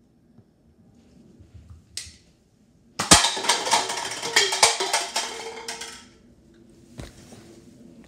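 A Nerf gun fires with a short puff, and about a second later the dart strikes a stacked pyramid of cups, which topple and clatter down onto the shelf and tile floor for about three seconds, then a single knock.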